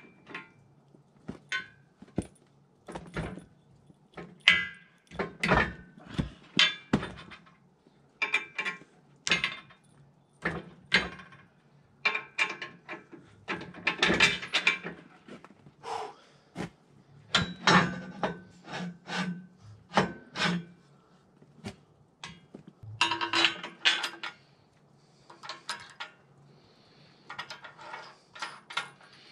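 Steel sawmill frame parts and hardware knocking and clinking as they are handled and fitted together by hand: many irregular sharp knocks, some with a short metallic ring.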